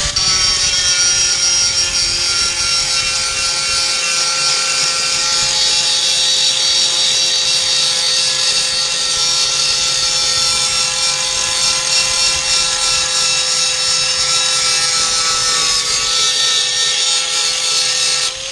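Angle grinder running continuously against the steel of a pickup bed, grinding off paint where a bracket is to be welded: a steady high whine over a harsh grinding hiss, its pitch sagging slightly near the end before it cuts off.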